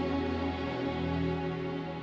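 Background music of slow, long held chords.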